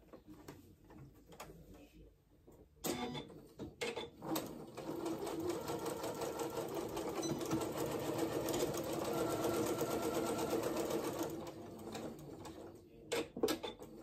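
Janome computerized sewing machine stitching a seam. It starts with a couple of short bursts about three seconds in, then runs steadily at a fast, even rattle for about eight seconds before slowing and stopping, with a few clicks near the end.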